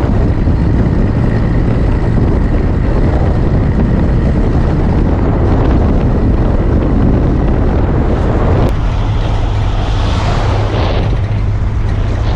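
Ford Ranchero camper pickup driving at road speed: a steady low engine and tyre drone under heavy wind rushing over an outside-mounted microphone. The sound shifts abruptly about nine seconds in.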